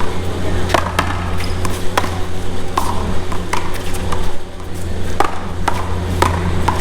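One-wall paddleball rally: solid paddles striking the ball and the ball smacking off the wall, a run of sharp hits about half a second to a second apart.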